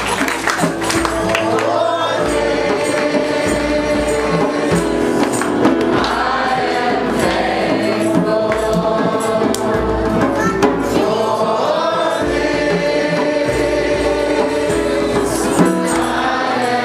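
A group singing a song together, led by a man's voice, with a jingling hand percussion instrument such as a tambourine keeping a steady beat.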